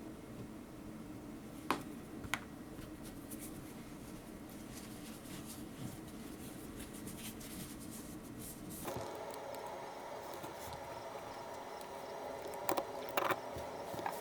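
A few small, sharp metallic clicks and taps from the parts of a small folding knife being handled and fitted back together, over a faint steady background hum. The background changes in tone about two-thirds of the way through.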